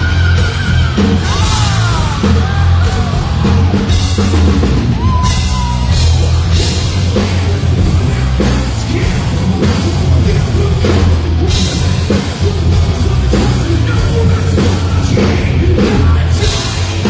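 Live hard rock band playing loudly: drum kit and distorted electric guitars, with a singer shouting and singing over them.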